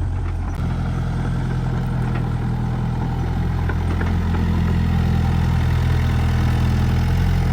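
An engine running steadily at an even idle-like speed, its low hum picking up slightly about half a second in.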